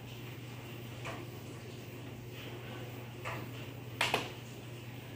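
Light clicks and knocks of a laptop being handled, with two sharp clicks in quick succession about four seconds in, over a steady low electrical hum.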